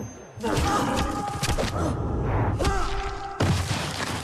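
Dramatic film score with heavy hits, coming in sharply about half a second in and again with a loud hit near the end.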